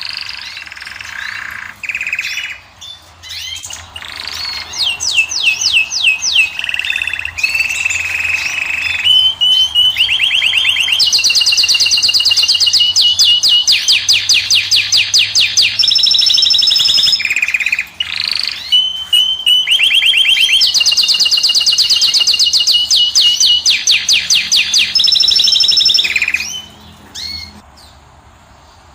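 Caged finch singing: a varied song made of fast trills of repeated notes, several rolls held for two to five seconds, broken by short gaps, fading down near the end.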